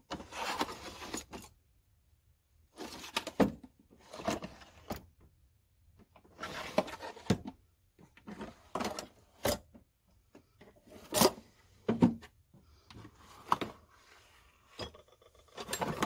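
Metal tool chest drawer sliding open and hand tools clinking and rattling as someone rummages through them. The sound comes in irregular bursts of about a second each, with a few sharp clicks.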